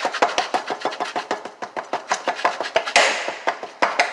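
Rapid, even tapping of a play-kitchen utensil on a hard surface, about six taps a second, like quick fake chopping. About three seconds in, a short hiss starts suddenly and fades within a second.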